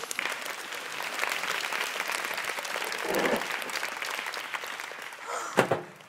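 Studio audience applauding. It dies away about five and a half seconds in.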